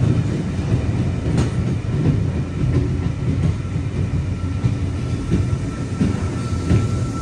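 Electric passenger train running on the rails: a steady low rumble with a sharp click about a second and a half in, and a faint thin whine joining from about halfway.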